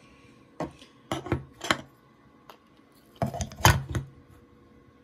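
Clacks and knocks of a hard display stand for a model airliner being handled and set down, a few quick ones in the first two seconds and a louder cluster a little past the middle.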